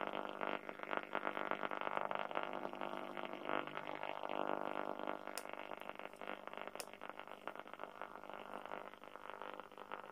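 Grundig transistor radio's speaker giving AM-band static with a steady buzzing hum while it is tuned between stations, slowly fading. There are two short ticks about halfway.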